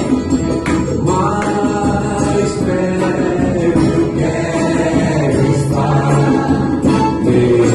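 Gospel worship song: singing voices over instrumental accompaniment, steady and loud.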